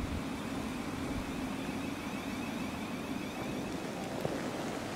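Thameslink Class 700 electric multiple unit at the station, giving a steady electrical hum with a higher whine that fades out about three seconds in, over a hiss of background noise.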